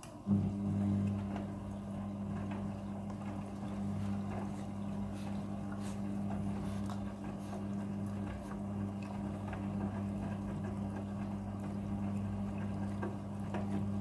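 Midea front-loading washing machine's drum motor starting up about a third of a second in and turning the drum with a steady hum, tumbling wet laundry during a pre-wash run without detergent.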